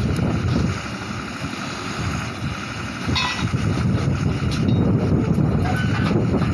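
Truck-mounted borewell drilling rig running: its engine and air compressor give a steady low-pitched din, with wind buffeting the microphone and a few short metallic clinks.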